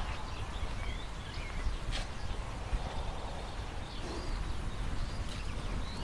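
Outdoor ambience of a steady low wind rumble on the microphone, with small birds chirping now and then and a few faint clicks.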